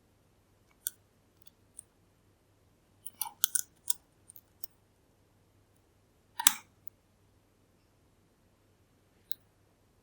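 Sharp, irregular clicks of lock picking tools working the pins of a Kale Kilit 10-pin dimple lock: one click about a second in, a quick cluster around three to four seconds, the loudest click about six and a half seconds in, and one more near the end.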